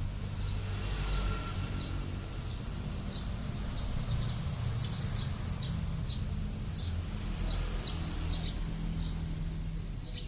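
Short high bird chirps repeating about once or twice a second over a steady low rumble.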